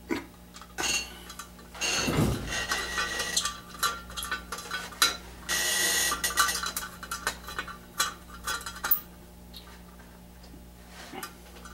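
Clinks, knocks and a brief scrape of sheet metal as a small flywheel guard is handled and fitted onto a small Briggs & Stratton engine, with a steady low hum underneath. The clatter is busiest in the first nine seconds and dies down near the end.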